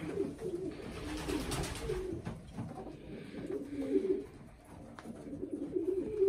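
Domestic pigeons cooing in a loft, several low warbling coos overlapping without a break.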